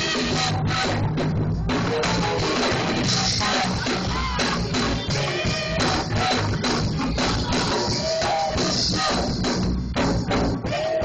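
Youth choir singing with a live band: drum kit and bass playing a steady beat under the voices.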